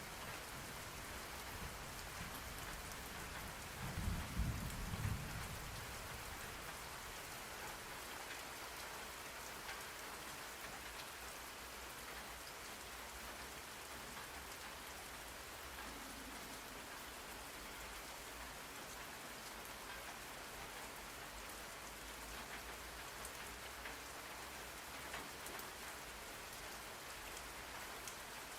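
Steady rain falling on a surface, with a brief low rumble of thunder about four seconds in.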